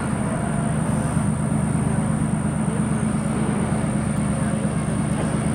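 Diesel switcher locomotive running with a steady low engine drone as it pulls a train of covered hopper cars at slow speed.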